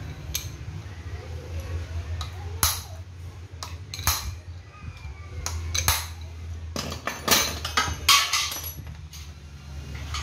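Metal tools clinking and tapping against each other: a string of sharp, separate clinks, the loudest a few seconds before the end, over a steady low hum.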